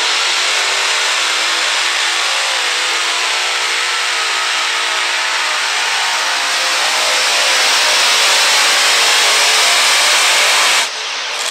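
Multi-engine unlimited modified pulling tractor with supercharged engines, running loud with a dense roar and a slightly wavering pitch. It grows louder about seven seconds in and cuts off abruptly near the end.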